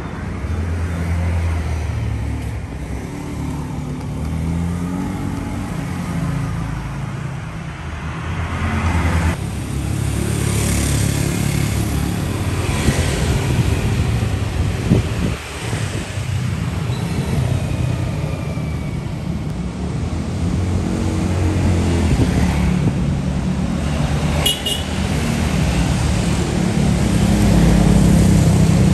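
Motor vehicle engines and road traffic, with engine notes rising and falling as vehicles pass.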